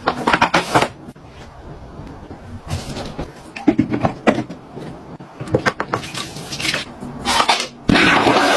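Scattered clicks and knocks at irregular intervals, like a household fitting being worked by hand, then a steady rushing noise starts near the end.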